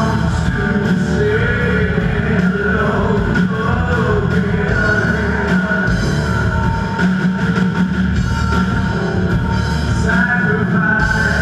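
Live rock band playing loudly on stage: drum kit and electric guitars through the PA, with a voice singing.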